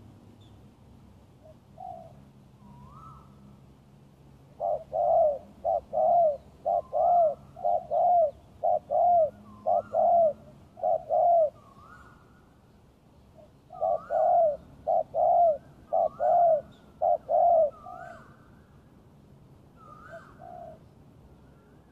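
Spotted dove cooing: a long run of quick, arching coos, nearly two a second, with short rising higher notes among them. The calling pauses about twelve seconds in, then runs on again, with a few last coos near the end.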